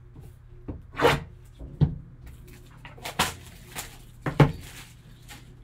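Handling noise from a sealed, wrapped cardboard trading-card box being picked up and turned in gloved hands: a few short rustles and knocks, the sharpest about two seconds in and again about four and a half seconds in.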